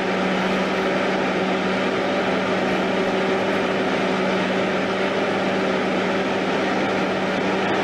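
A steady engine-like drone: a constant low hum over an even wash of noise, unchanging throughout.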